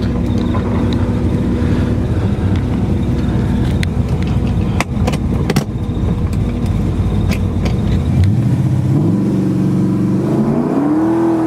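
A 1970 Chevelle SS's 454 big-block V8, breathing through headers and a 3-inch dual exhaust, runs at a steady note for about eight seconds. Near the end it revs up, rising in pitch in two steps.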